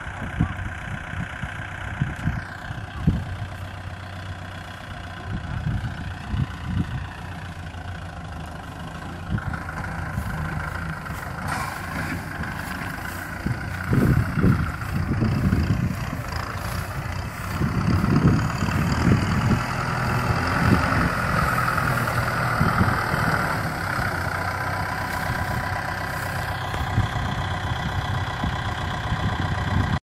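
Kubota M6040SU tractor's diesel engine running steadily while it tows a loaded trailer of rice sacks, getting a little louder about halfway through.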